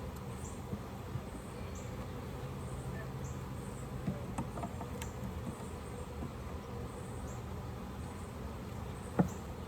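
Honeybees buzzing steadily around an open hive, with a few light clicks and knocks as frames are handled, the sharpest a little after nine seconds.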